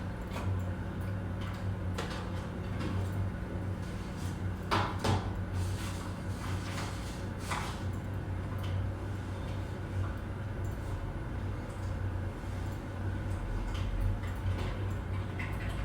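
Office background noise: a steady low hum under scattered clicks and clunks of office activity. The loudest are a pair of knocks about five seconds in and another about seven and a half seconds in.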